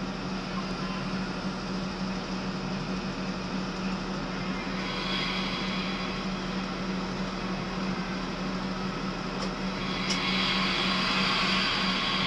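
Inside the cab of a moving Class 43 HST power car: a steady low drone with wheel and rail noise, the hiss rising about five seconds in and again, louder, about ten seconds in, with a couple of faint clicks just before.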